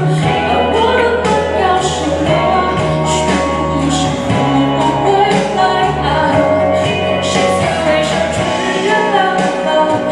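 A woman singing a Mandarin pop ballad over instrumental accompaniment with a steady beat.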